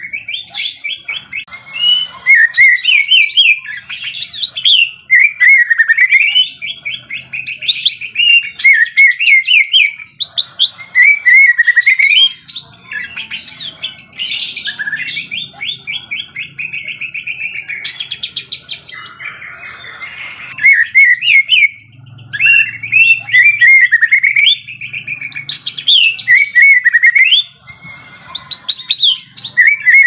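White-rumped shama (murai batu) singing continuously: rapid trills and runs of high whistled notes in quick succession, with a few seconds of softer phrases just past the middle.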